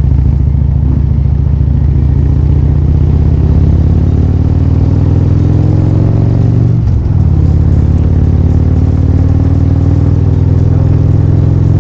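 Loud vehicle engine running under load, its pitch slowly climbing. About seven seconds in there is a brief break, and then the pitch climbs again.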